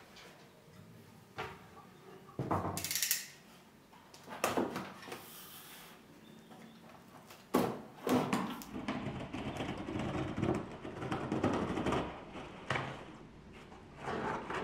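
Cardboard shipping box being opened by hand: packing tape slit with a box cutter and the flaps pulled open, heard as a string of scrapes, rustles and knocks, busiest in the middle and latter part.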